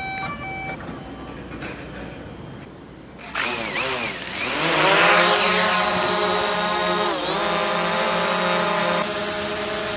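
DJI Mavic Pro quadcopter: a few short electronic beeps at the very start, then about three seconds in its propeller motors start with a sudden whir. The whine rises in pitch as it lifts off and settles into a steady hover, dipping briefly about seven seconds in.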